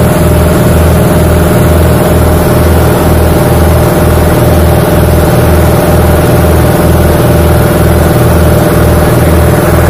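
Petrol engine of a road-cleaning machine running steadily and loudly up close, with a regular low throb about two to three times a second and a steady whine over it.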